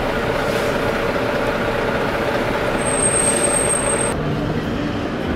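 Steady city street traffic noise, with the hum of vehicle engines running. A thin high whine sounds for about a second near the middle.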